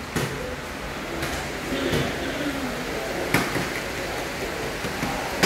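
Small plastic water bottles knocking onto a wooden floor several times during a children's bottle game, with faint children's voices under a steady background hiss.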